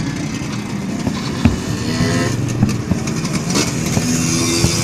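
Street din of motorbike engines running and revving, with scattered sharp pops and a crackling burst about three and a half seconds in, typical of a fireworks display.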